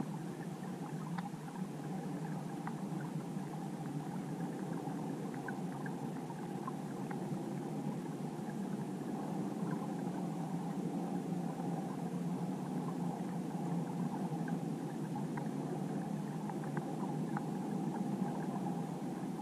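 Muffled underwater ambience: a steady low rush of water noise with faint, scattered ticks.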